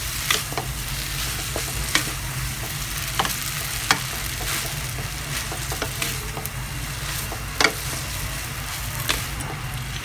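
Noodles being stir-fried in a wok with a wooden spatula, mixed through with stock and dark soy sauce. A steady sizzle runs under scattered sharp knocks of the spatula against the wok, the loudest about four seconds in and again near eight seconds, over a low steady hum.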